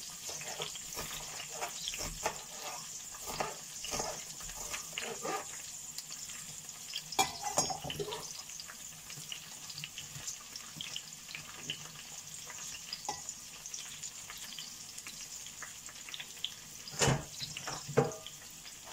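Zucchini and bell pepper slices sizzling in oil in a frying pan, with a knife chopping onion on a cutting board in quick small clicks over the first several seconds. A few louder knocks follow, about seven seconds in and again near the end.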